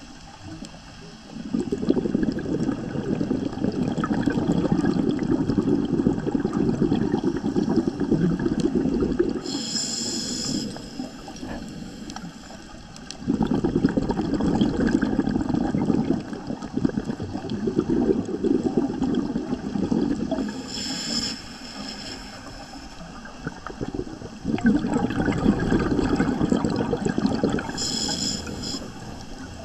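A scuba diver breathing through a regulator underwater: a short hiss of each inhalation, about every ten seconds, alternating with long low bubbling rushes of exhaled air.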